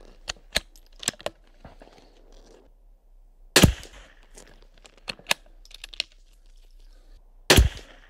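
Two shots from a Sako P94S .22 LR rifle, about four seconds apart, the first about three and a half seconds in and the second near the end. Between them come light metallic clicks of the bolt being worked to chamber the next round.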